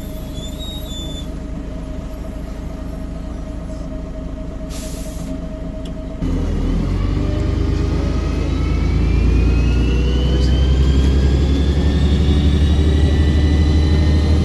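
Volvo Olympian double-decker bus's turbocharged diesel engine idling steadily. About six seconds in it suddenly gets louder as the bus pulls away, and a turbo whistle climbs slowly in pitch as the engine works harder.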